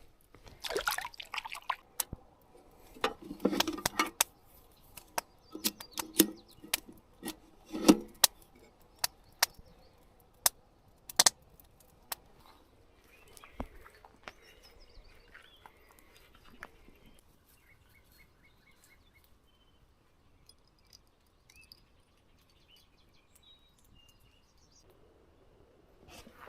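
Sharp clicks, knocks and rustling from handling a freshly landed small bullhead and fishing tackle, dense in the first half and then dying away. Faint short high chirps are heard in the quieter second half.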